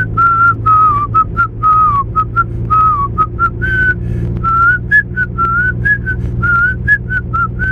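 A man whistling a tune in quick short notes, some sliding up or down in pitch, over the steady low drone of a car's engine and road noise heard inside the cabin.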